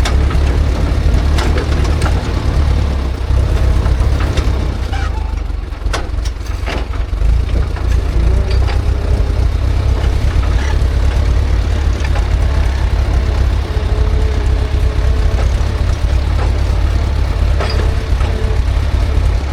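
Ursus C-360 tractor's four-cylinder diesel engine running steadily, with occasional sharp clanks from the disc harrow working through the soil.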